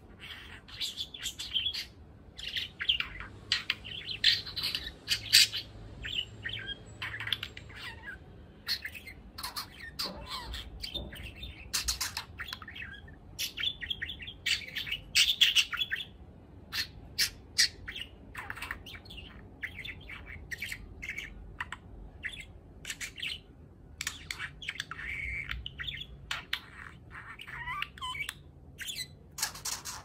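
Young male budgerigar warbling: a rapid, near-continuous string of short chirps, clicks and chattering notes, with a few brief pauses.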